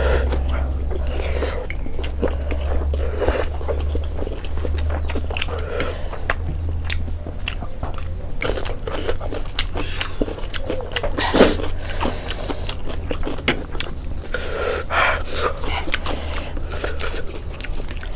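Close-up eating sounds of people eating black bean noodles: wet chewing and sharp mouth clicks, with a louder one about halfway through, over a steady low hum.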